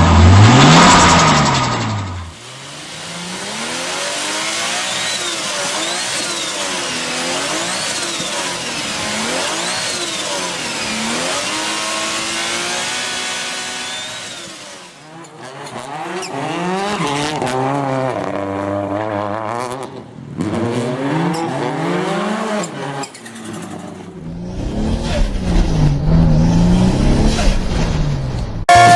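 Turbocharged car engines revving again and again, the pitch climbing and falling with each blip of the throttle, with turbo flutter as the throttle closes. It comes as a string of short clips that cut abruptly from one car to the next, and the first couple of seconds are the loudest.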